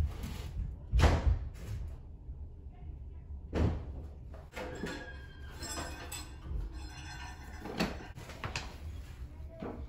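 Plastic storage bins and decorations being handled: a few sharp knocks and thumps, the loudest about a second in, with rustling of plastic wrapping in between.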